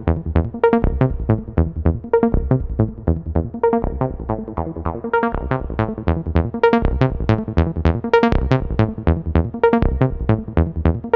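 Electronic music with a steady beat: short, quickly repeated synthesizer notes over a low bass line.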